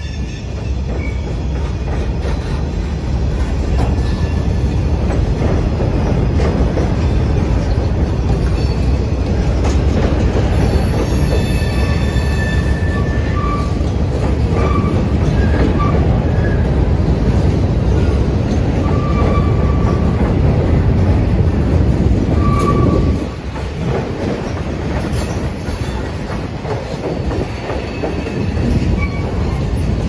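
Freight cars rolling across a steel girder railway bridge: a loud, steady rumble of wheels on rail, with short high wheel squeals now and then. The rumble drops briefly about two-thirds of the way through.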